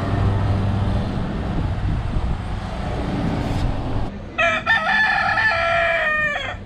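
A rooster crowing once, a long call of about two seconds starting about four seconds in, over steady background noise.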